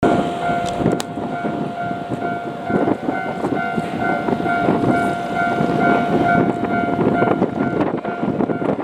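Japanese railway level-crossing warning bell ringing, an electronic ding repeating about twice a second, which stops about seven seconds in. Underneath is a steady, loud rumbling noise.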